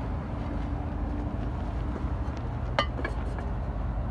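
Fired clay pots clinking: one sharp ringing clink about three quarters of the way through, then a few lighter clicks, over a steady low background rumble.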